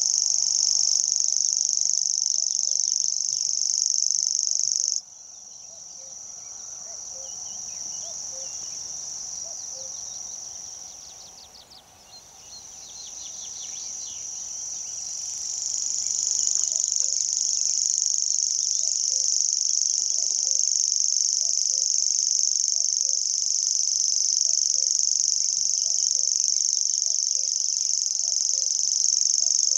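Common grasshopper warbler reeling: a continuous high, insect-like trill held on and on without a break. It drops sharply in loudness about five seconds in, fades almost away around twelve seconds, then swells back to full strength.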